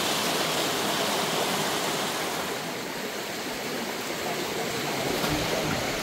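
Shallow stream water rushing steadily over stones, with a low rumble coming in near the end.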